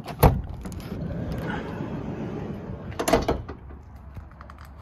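Sliding side door of a 2023 Ram Promaster 2500 van being opened. The latch releases with a sharp clunk, the door rolls back along its track, and it catches in the open position with a second clunk about three seconds in.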